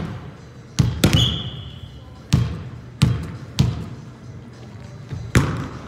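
A volleyball being struck and bouncing on a hardwood court during play: about six sharp smacks at uneven intervals, each echoing in a large gym.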